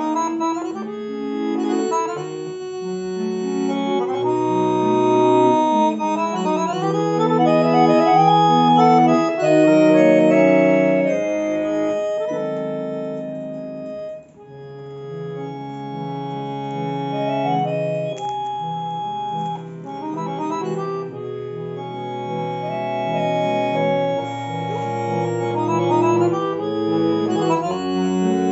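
Piano accordion played solo: held chords and moving melody lines over a stepping bass line, with a brief break about fourteen seconds in.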